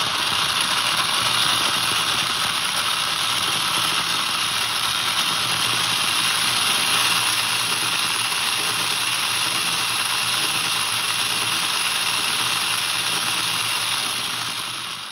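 3D-printed robotic actuator spinning continuously with a servo arm on its output, its motor and printed gearing making a loud, steady, high-pitched whir. It starts suddenly and winds down at the very end.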